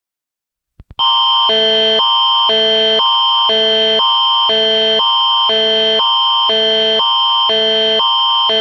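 Canadian Alert Ready attention signal: a steady high tone under a higher chord and a lower chord that swap about every half second, starting about a second in after two faint clicks and running about eight seconds. It is the signal that opens an emergency alert message.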